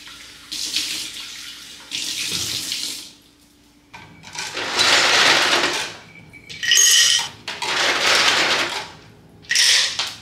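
Running water, turned on and off in about six separate bursts of hissing flow, the longest about two seconds. A short burst with a bright clinking ring comes about two thirds of the way in.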